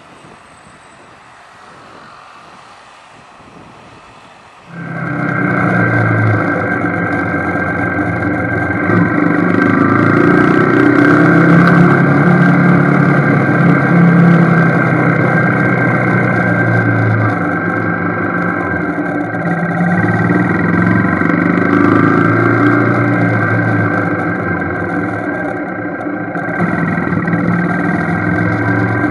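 Faint rumble, then about five seconds in a motorcycle engine comes on abruptly, loud, and keeps running steadily with an even, buzzing pitch, swelling louder and easing off a few times.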